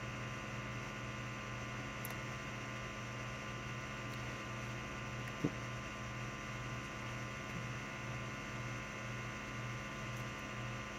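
A low steady hum that pulses evenly about three times a second, with one soft knock about five and a half seconds in.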